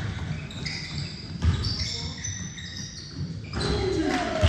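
Basketball bouncing on a gym's hardwood court, with a couple of heavy thumps, high squeaks of sneakers on the floor, and voices in the echoing hall.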